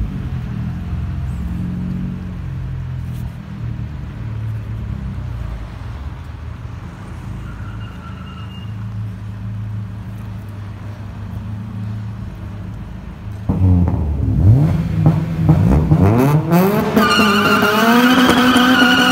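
Honda H22A and K20A four-cylinder VTEC engines on Fujitsubo Power Getter exhausts idling with a low, steady note, then, about 13 seconds in, revving hard as the cars accelerate away, the exhaust note climbing in pitch several times. Music comes in near the end.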